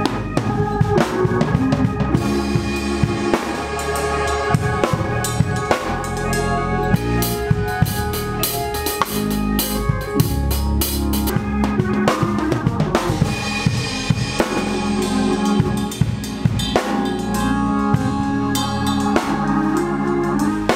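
Drum kit played with a band: kick, snare and cymbal hits keep up a steady groove under sustained pitched notes from other instruments.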